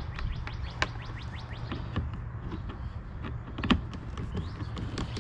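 Small birds chirping rapidly in quick, short, falling notes over a low steady rumble, with a sharp click about a second in and a louder one just under four seconds in.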